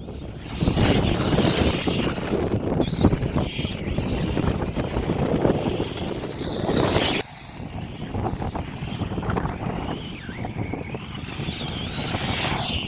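Brushless electric motor of a Tamiya HotShot RC buggy whining up and down in pitch as it is driven on sand, under heavy wind noise on the microphone. The level drops suddenly about seven seconds in.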